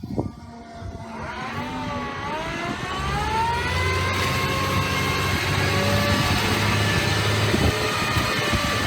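KHANT 8x8 heavy dump truck's diesel engine revving up over the first few seconds, then holding steady at high revs under load.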